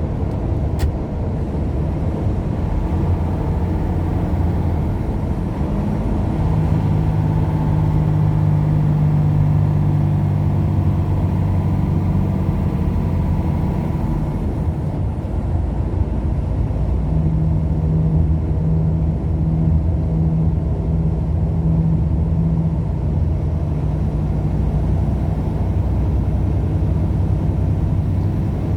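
Steady road noise of a moving vehicle heard from inside the cab: engine and tyres droning, with a low hum that swells between about 6 and 14 seconds in and again around 17 to 23 seconds.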